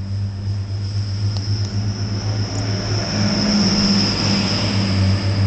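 Grand Central Class 180 Adelante diesel multiple unit pulling away from the platform under power, its diesel engines giving a steady low drone with a high steady whine above it. The sound grows louder as the coaches pass close by.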